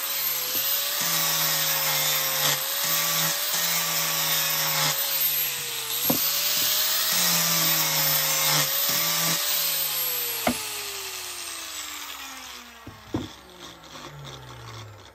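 Angle grinder with a sanding disc running against pallet wood: a steady high motor whine with a rasping rush, the pitch sagging slightly each time the disc bites. From about ten seconds in it is switched off and winds down, its whine falling steadily in pitch and fading, with a few knocks as the board and tool are handled.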